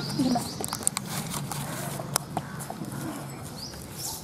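Small metallic clicks and taps of hands and a tool working the chainsaw's side-cover nuts, undoing the bar cover to re-tension a loose chain. Short, high, falling bird chirps come every second or so in the background.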